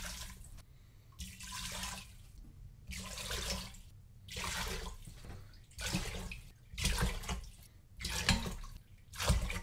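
Water poured from a glass measuring cup into the inner pot of an Instant Pot, in a series of short pours and splashes about a second apart.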